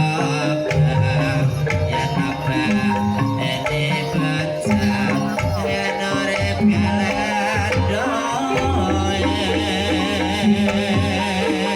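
Banyumasan gamelan music for an ebeg trance dance: tuned metal percussion playing steady held notes over hand-drum (kendang) patterns, with a wavering high melody line above.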